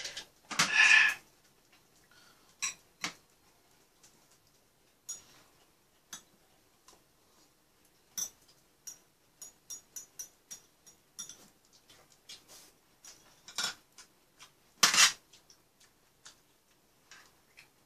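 Chopsticks and spoons clicking against bowls and a serving tray while people eat, a scatter of short light clicks with two louder clatters, one about a second in and one near the end.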